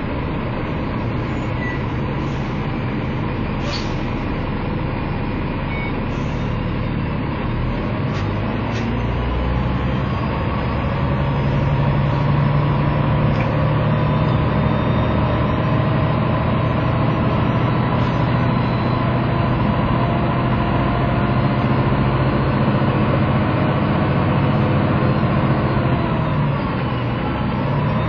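Diesel engine of a parked three-axle double-decker bus idling steadily. About eleven seconds in its low hum grows louder, then it dips briefly near the end and picks up again.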